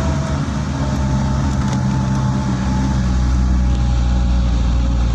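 A car's engine and tyre noise while driving: a steady low hum with a faint thin whine above it.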